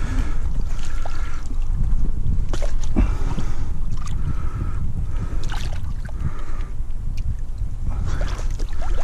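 River water sloshing and splashing as a retaining sling holding a pike is held open in the shallows at the jetty edge, with scattered small splashes. A steady low wind rumble on the microphone runs underneath.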